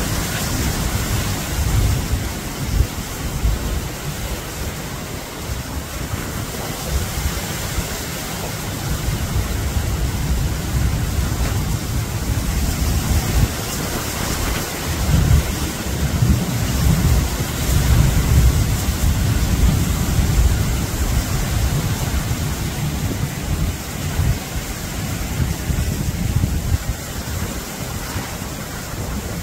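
Strong gusty wind buffeting the phone's microphone: a loud low rumble that swells and eases in gusts over a steady hiss.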